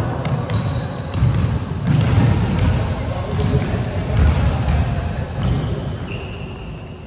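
A basketball bouncing on a wooden gym floor during play, with sneakers squeaking on the court; the knocks echo in the hall.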